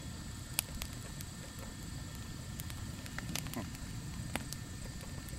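Wood campfire burning and crackling, with a few sharp pops over a steady low noise.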